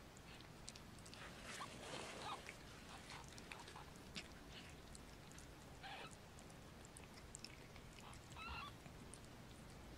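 Faint wet licking and suckling from newborn kittens nursing on their mother cat, with two short high squeaks from the kittens, about six seconds in and near the end.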